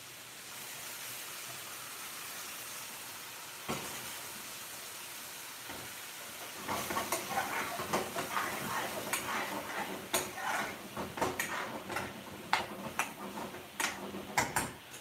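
Curry sizzling in a hot aluminium frying pan on a gas hob, with base gravy just added. There is a single knock a little before four seconds in. From about halfway, a metal spoon stirs and scrapes around the pan in quick, irregular clicks and knocks.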